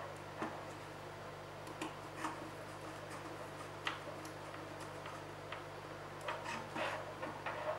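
Scattered light clicks and ticks of a small screwdriver working the screw terminals of an L293D motor shield and of the board being handled, with several clicks close together near the end. A steady low hum runs underneath.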